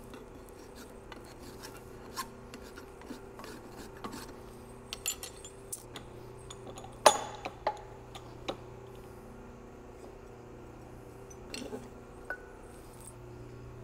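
Hand work on a steel driveshaft's universal-joint yoke: scattered light metal clicks, taps and short scrapes as the yoke, bearing cup and a file are handled. One sharper metal clank comes about seven seconds in. A low steady hum runs underneath.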